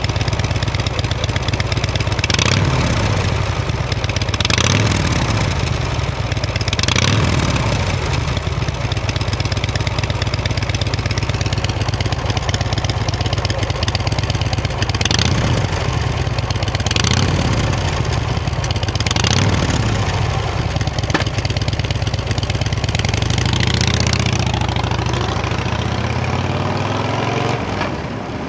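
A 2007 Harley-Davidson Dyna Low Rider (FXDL)'s Twin Cam 96 V-twin idling through its factory mufflers and blipped six times into short revs. Near the end it pulls away and accelerates up through the gears.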